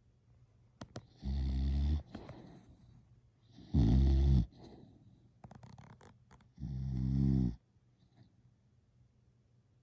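Snoring: three loud snores, each just under a second long, about two and a half seconds apart.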